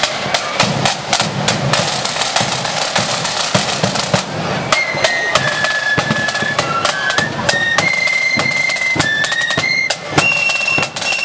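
Marching flute band playing: snare and bass drums beat out a rapid rhythm, and the flutes come in with a high melody about four and a half seconds in.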